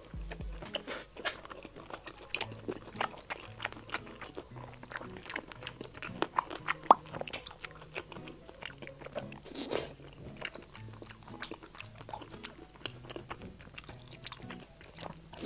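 Close-miked chewing and biting of sauce-soaked fried skewers: crisp crunches and wet mouth clicks, with one sharp loud bite about seven seconds in.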